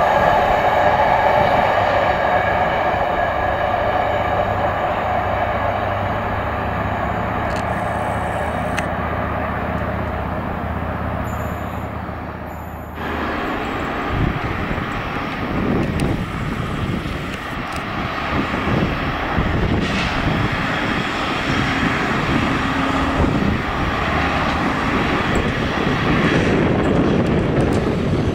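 Destia Rail work train, a Ttm3 track machine hauling wagons, running on the rails: the engine runs and steady wheel tones fade as it goes by. After a sudden change about halfway through, the engine runs again with irregular clicks and knocks from the wheels over the track.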